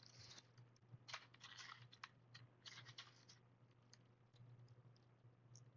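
Faint, scattered scratches and light clicks of small pieces of crushed glass and shell being handled and pressed onto the clay, over a steady low hum.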